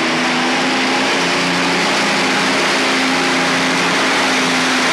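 Twin-turbocharged Allison V12 aircraft engine of a modified pulling tractor running hard under load during a pull: a loud, steady engine note whose pitch shifts only slightly.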